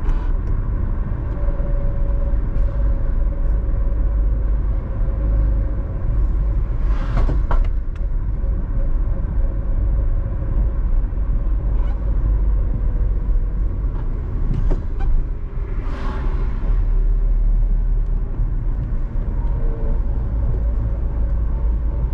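Steady road noise of a car on the move: a continuous low rumble of tyres and engine with a faint steady hum. Two brief rushing swells, about seven and sixteen seconds in, stand out above it.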